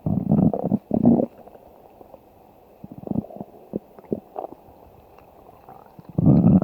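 A person's stomach growling and gurgling in irregular bursts: two loud rumbles in the first second and a half, scattered smaller gurgles in the middle, and another loud rumble near the end.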